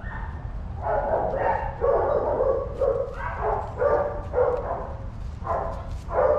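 A dog yipping and whining in a quick string of short calls, starting about a second in.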